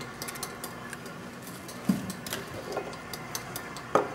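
Stand mixer motor running steadily while kneading dough, under light clicks and knocks of a whole egg being handled and tapped against a stainless-steel bowl, the sharpest knock near the end.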